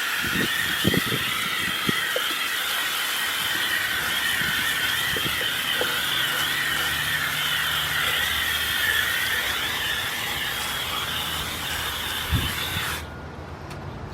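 A steady, shrill chorus of insects, with a few low knocks in the first two seconds. It drops out briefly near the end.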